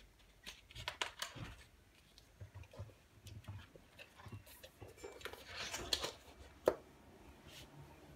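Paper pages and the card cover of a spiral-bound book being turned and flipped over by hand, rustling in several bursts, with one sharp tap about two-thirds of the way through.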